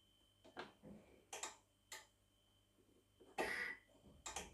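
A few light, scattered clicks and taps as the controls of a Thermomix are set for kneading, with a slightly longer rustle about three and a half seconds in.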